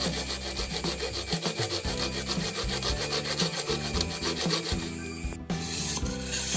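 Hacksaw blade cutting through a PVC pipe in quick back-and-forth strokes that stop about five seconds in, with background music underneath.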